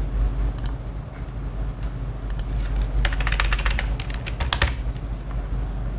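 Typing on a computer keyboard: a few scattered keystrokes, then a quick run of keystrokes about three seconds in, over a low steady hum.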